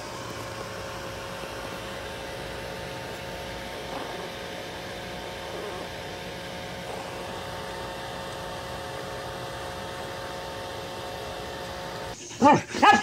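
Steady mechanical hum and hiss with a few constant tones. Near the end a dog breaks in with loud whining howls that bend up and down in pitch.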